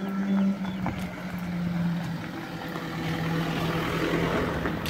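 A steady motor drone that slowly sinks in pitch, with a hiss building up near the end.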